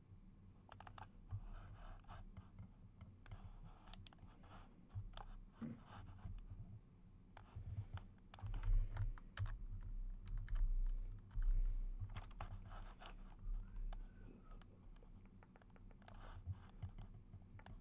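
Irregular clicks and taps of a computer keyboard and mouse, with dull low thuds swelling about halfway through.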